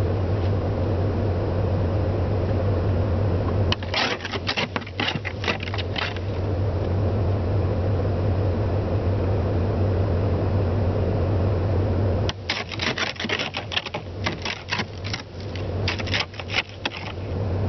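A truck engine running with a steady low hum. Twice, about four seconds in and again from about twelve seconds in, a spell of rapid sharp clicks and scrapes.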